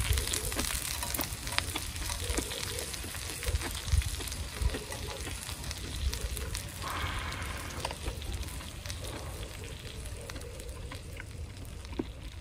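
Pork, kimchi and vegetables sizzling and crackling in hot fat on a stainless-steel griddle plate, with a few dull knocks as pieces are turned with tongs.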